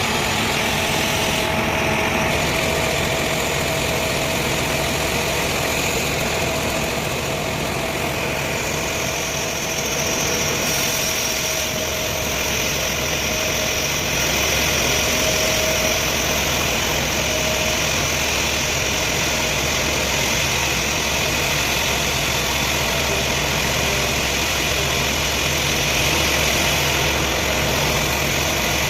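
Engine-driven sawmill machinery running steadily with a low hum and a constant whine; a higher whine joins about ten seconds in.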